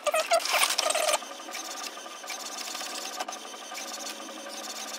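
HP OfficeJet Pro 9015 inkjet printer printing its printhead alignment page: motor whines rise and fall in the first second, then the mechanism runs with a steady whir and fine, rapid ticking.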